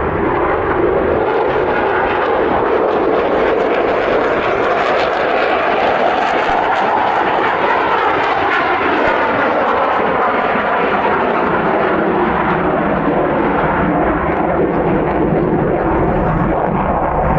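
A fixed-wing aircraft passing, its engine noise a loud, steady rush that shifts slowly in pitch about halfway through as it goes by.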